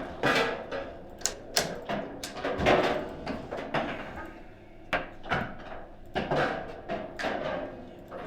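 Table football in play: the ball being struck by the player figures on the rods and knocking against the table, with the rods clacking. It comes as a quick, irregular run of sharp knocks, the loudest near the middle.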